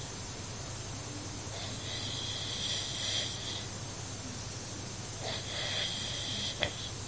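A drunk, sleeping man snoring: two long, hissing, whistly breaths, the first about a second and a half in and the second about five seconds in. A sharp click comes right at the end of the second breath, over a steady low hum.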